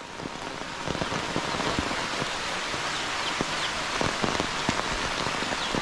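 Steady rain falling, a dense even hiss with many individual drops ticking close by on nearby surfaces. It swells up over the first second or so, then holds steady.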